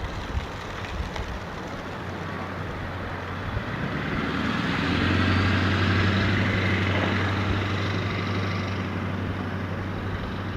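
A motor vehicle passing by: engine and road noise swelling to a peak about halfway through, with a steady low engine hum, then slowly fading.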